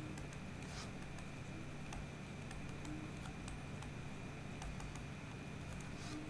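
Faint, scattered taps and short scratches of a stylus writing on a tablet screen, over a steady low electrical hum.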